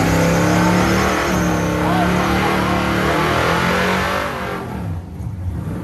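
A race vehicle's engine at full throttle, accelerating hard down the drag strip, with a brief dip about a second in. It fades away over the last second or so as the vehicle pulls away down the track.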